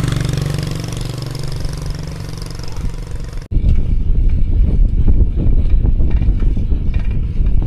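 A motor engine running steadily, its pitch sinking slightly, then, after an abrupt cut about three and a half seconds in, heavy wind buffeting on the microphone with a low rumble.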